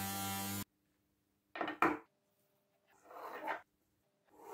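A rotary tool spinning a felt polishing wheel runs steadily with a hum, then cuts off abruptly in the first second. A metal cuff bracelet then knocks twice on a wooden workbench and scrapes across it twice, each scrape swelling louder.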